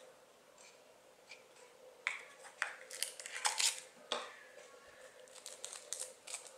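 Paper crinkling and crackling as a small paper packet is handled and opened, loudest in a quick cluster between about two and four seconds in, with lighter rustles near the end. A faint steady hum sits underneath.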